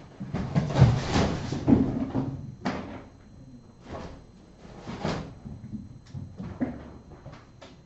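Kittens at play: a run of knocks, thumps and scuffling for the first two seconds or so, then scattered sharp knocks and clicks that grow fainter.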